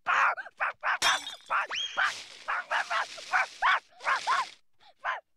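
Cartoon dog barking in rapid, repeated yaps, with a sharp crash of breaking glass about a second in.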